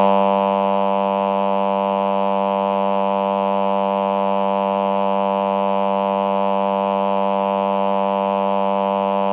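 Roland VP-330 Vocoder Plus synthesizer playing its male 'Human Voice' choir sound: one low synthetic 'aah' note held steady and unchanging.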